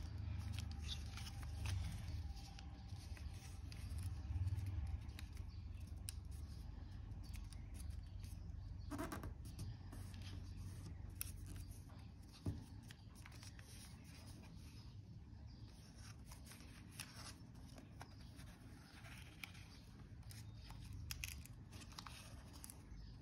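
A sheet of origami paper rustling and crinkling as hands fold and crease it on a tabletop, with irregular soft crackles and one sharper tick about twelve seconds in.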